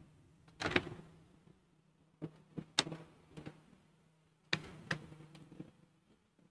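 Scattered light clicks and taps, in three short clusters, of the syrup bottle and its dosing cup being handled.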